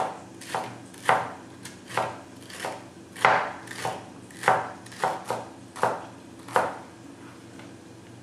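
A kitchen knife chopping celery on a cutting board: about a dozen sharp single strokes, roughly two a second, that stop a little before the end.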